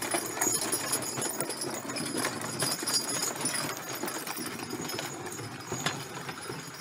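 Hooves of a pair of draft horses clopping irregularly on packed snow as a horse-drawn sleigh goes by, easing off slightly in the second half.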